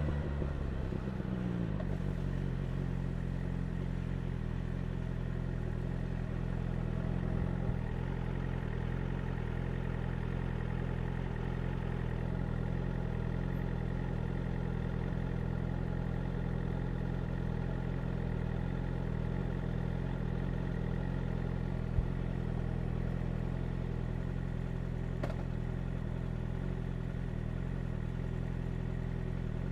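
BMW S1000R's inline-four engine dropping from a rev back to idle in the first second or so, then idling steadily, with one short sharp click about two-thirds of the way through.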